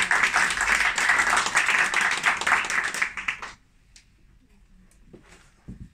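Small audience in a room applauding, the clapping stopping about three and a half seconds in.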